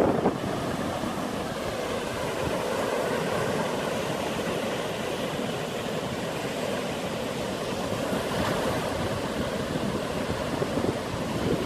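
Sea waves washing steadily in a lull between louder surges, swelling again near the end.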